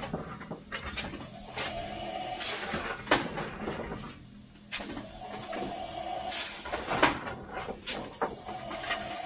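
Steam locomotive cab at a standstill with the throttle cracked: steam hissing in three surges a few seconds apart, with scattered metallic knocks and clanks.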